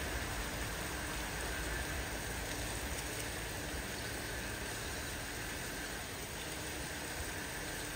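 Steady rushing hiss of a water column pouring water into the tank of a BR Standard Class 4 tank steam locomotive, with steam hissing from the engine.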